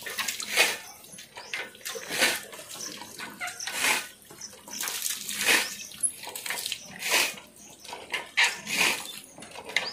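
Water poured from a small steel mug over a water buffalo, splashing off its hide onto the brick floor, repeated mugful after mugful about every second and a half.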